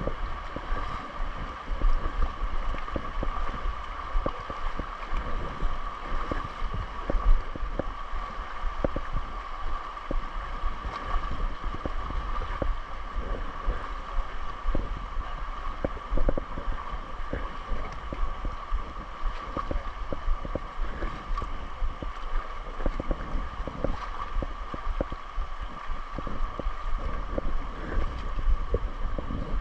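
Wading through a shallow, muddy river: water splashing and sloshing in many short irregular strokes over the steady rush of the stream, with wind buffeting the microphone.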